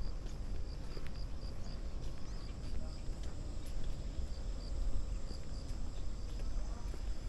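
An insect chirping in a steady pulse, about three chirps a second, over a constant low rumble and a few faint footsteps.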